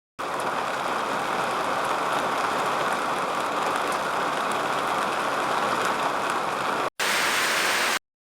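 A steady, even rush of falling water, with no tones in it. It breaks off suddenly about seven seconds in, and a second, brighter stretch of water noise follows for about a second.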